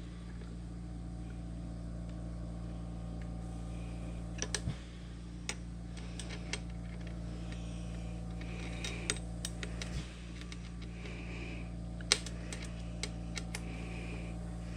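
A steady low electrical hum, with scattered small metallic clicks and taps from hand work on a key machine's parts. The sharpest tap comes about twelve seconds in.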